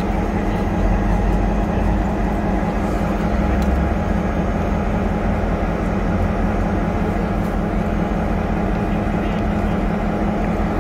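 Diesel engine of Reading and Northern No. 270, a streamlined cab-unit locomotive, idling while the train stands still: a steady low drone with a constant hum.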